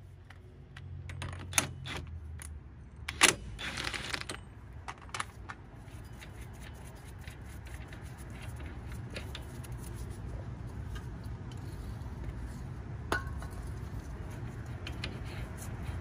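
Metal clinks and taps of a socket and axle nut being handled and turned by hand on the front axle shaft, the loudest a sharp clink a little over three seconds in, over a steady low hum.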